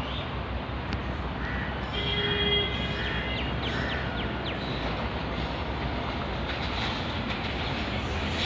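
WAP-7 electric locomotive of an approaching express train sounding a short horn blast about two seconds in, over a steady low rumble.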